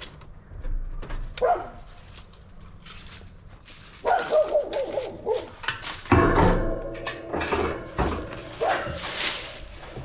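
A dog barking in several bouts, with a few knocks in between.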